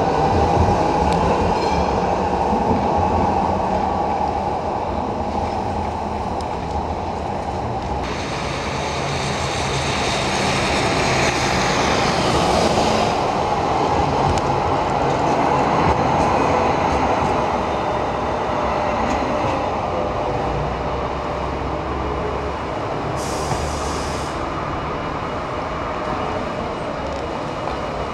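A Sheffield Supertram, a Siemens-Duewag articulated light-rail car, passes close by on street track. Its electric traction motors whine, rising in pitch at the start and falling again later, over steady wheel and rail noise.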